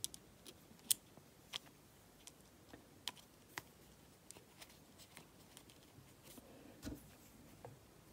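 Scattered light metallic clicks and ticks from a small screwdriver and metal parts while the screws of a Shimano Exsence DC baitcasting reel are driven back in during reassembly. A duller knock comes near the end.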